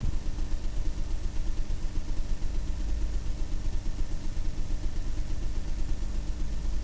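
A heavy low rumble that flutters rapidly in level, with a steady high-pitched whine above it, starting suddenly after silence.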